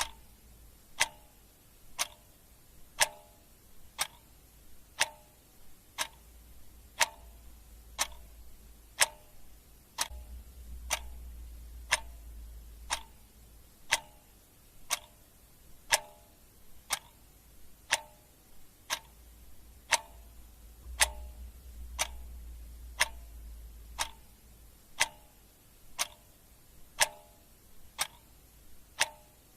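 Clock ticking sound effect: steady single ticks about once a second, each a sharp click with a brief ring.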